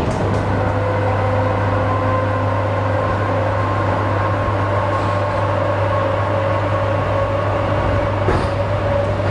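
Electric commuter train (elektrichka) running: a steady hum with a faint whine that slowly rises in pitch. A single short click comes about eight seconds in.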